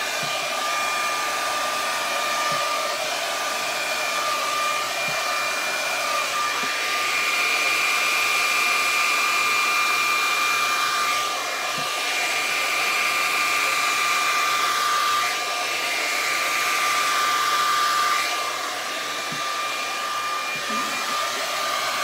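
Handheld hair dryer running steadily with a high fan whine, blowing wet acrylic paint across a canvas; its sound dips and shifts briefly a few times as it is moved.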